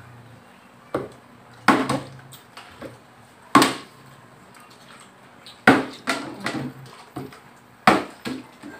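Scattered sharp knocks and clatters, about ten spread irregularly, from handling things at a dining table: a plastic water bottle and a plate with a whole chicken being torn apart by hand.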